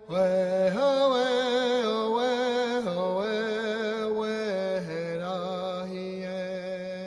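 Background music: a slow, chant-like melody sung by a solo voice with vibrato. It is one long phrase that steps up early on, then drops lower twice, about three and five seconds in.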